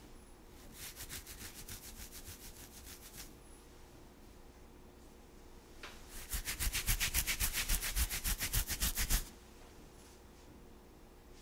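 Fingernails scratching a head of hair in two bouts of rapid back-and-forth strokes, the second louder and lasting about three seconds.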